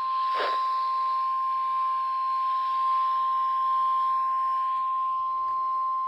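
NOAA Weather Radio warning alarm tone: a single steady tone of about 1050 Hz held without a break over faint radio hiss, the signal that a new warning broadcast is about to follow.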